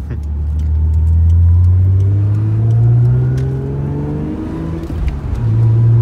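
Lexus SC300's 2JZ-GE straight-six engine accelerating under load, heard from inside the cabin: the engine note climbs steadily for about four seconds, dips briefly just before the fifth second as the driver shifts up, then pulls again at lower revs.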